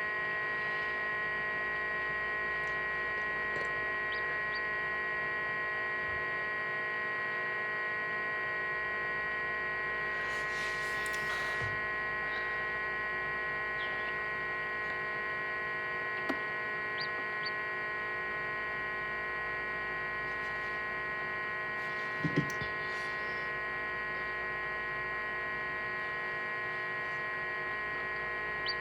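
Steady electrical hum from an egg incubator, made of many fixed tones, with a couple of faint small knocks about two-thirds of the way in.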